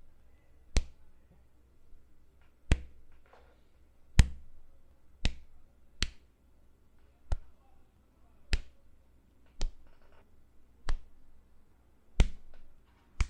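A series of punch sound effects, about eleven separate sharp hits, one every second or so.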